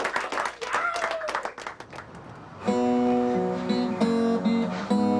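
Several people clapping with voices calling out over it for about two seconds, then strummed acoustic guitar music begins.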